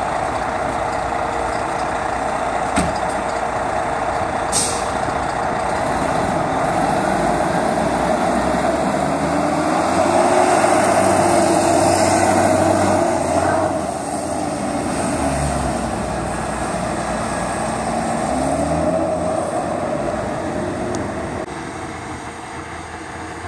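Heavy aerial fire truck, a 1998 Spartan Gladiator/Smeal tower, running and going by: a steady engine and road noise that grows to its loudest about halfway through and then fades. A faint tone winds up and down underneath, and two sharp clicks come early on.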